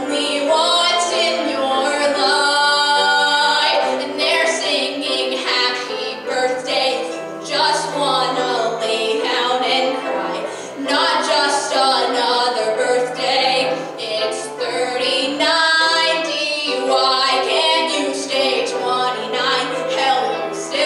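A young woman singing a musical-theatre song into a microphone, her held notes wavering with vibrato.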